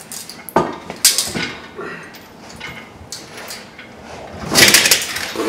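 Heavy steel bevel gear assembly of a Case 1150 crawler transmission being slid into the housing: metal scraping and a few knocks, with the loudest scrape and clank about four and a half seconds in. It goes in easily.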